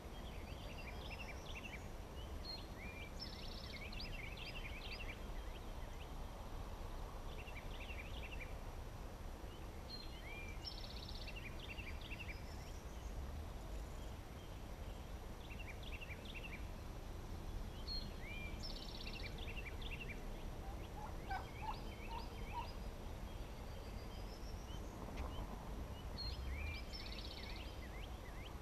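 Wild turkey calling: a short series of mid-pitched notes about three quarters of the way through. Over it a songbird repeats the same short, high, chirpy song about every eight seconds.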